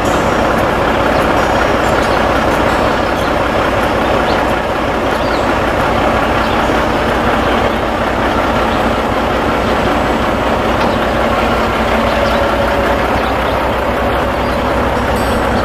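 Semi truck's diesel engine idling close by, a loud, steady, unbroken running noise with a faint hum.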